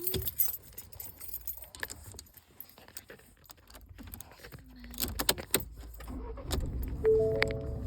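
A key ring jangling and clicking as the ignition key of a Ford Ranger pickup is put in and turned. A low hum comes up about six and a half seconds in, and an electronic dashboard chime of a few steady tones sounds near the end.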